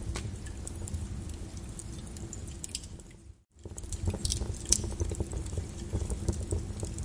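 Wood fire in a fireplace crackling, with many short sharp pops and snaps over a low rumble. The sound dips out briefly about three and a half seconds in and comes straight back.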